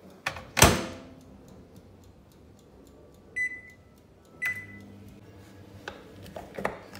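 A microwave oven door is shut with a loud clunk. Its control panel then gives two short electronic beeps as buttons are pressed. Near the end a knife knocks a few times on a wooden cutting board, chopping a bar of chocolate.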